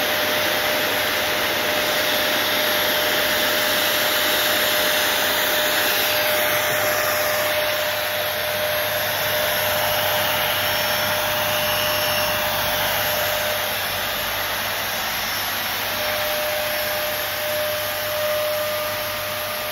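Delta ULV cold-fogging disinfection machine running steadily. Its electric blower motor makes a constant rush of air with a faint steady tone as it blows out mist, a little quieter in the last few seconds.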